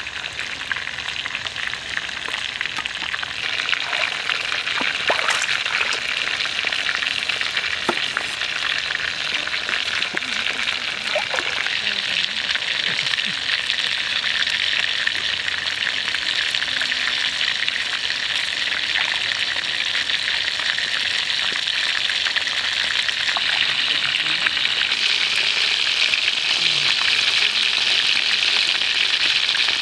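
Hot oil sizzling steadily around chicken legs deep-frying in a wok, with scattered small crackles and pops; the sizzle grows a little louder in the second half.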